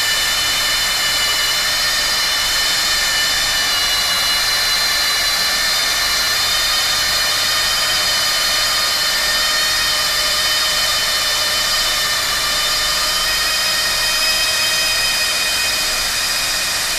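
Hand-held hot-air plastic welding gun running steadily, its blower motor giving a high whine over the hiss of rushing air.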